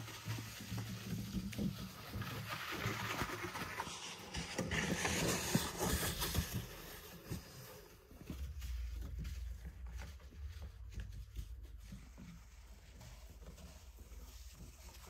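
A small wooden sled carrying a plastic water canister is dragged over packed snow and ice, with a rough crackly scraping that is loudest about five to six seconds in. After that it goes quieter, with a low steady rumble underneath.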